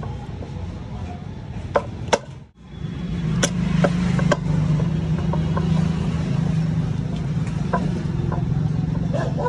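Sharp metallic clicks and taps from hand tools working the rear sprocket nuts of a motorcycle wheel hub. A steady low mechanical hum comes in after a brief break about two and a half seconds in.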